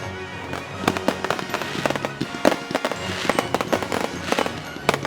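Fireworks going off in a fast, irregular run of bangs and crackles, with music playing underneath.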